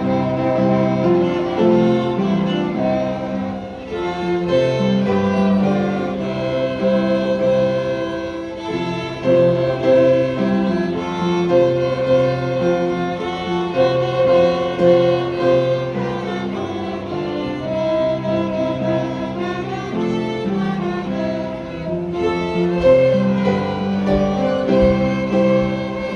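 Elementary school pupils playing violins together, a melody of held notes over a lower accompaniment, getting quieter near the end.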